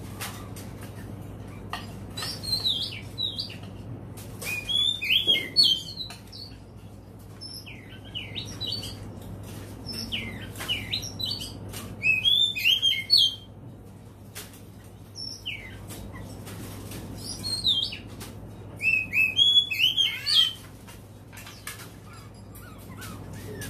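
Oriental magpie-robin singing: about eight bursts of quick, varied whistled phrases a few seconds apart, over a faint steady hum and scattered clicks.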